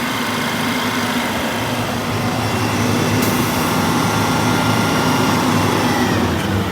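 Detroit Diesel 8V92TA two-stroke V8 diesel running steadily, with a high whine over the engine note.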